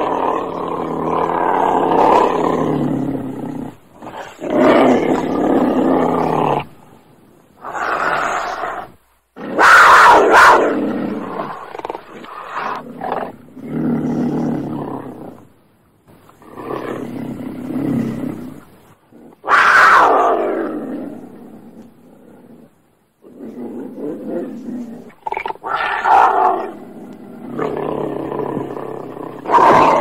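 Cougar (puma) giving a series of harsh roars and snarls, about a dozen calls of one to three seconds each with short pauses between. The loudest come about a third and two-thirds of the way through.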